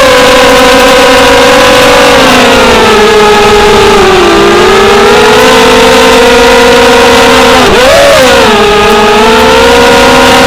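FPV racing quadcopter's brushless motors and propellers whining loudly, the pitch sliding up and down with the throttle, with a quick dip and surge about eight seconds in.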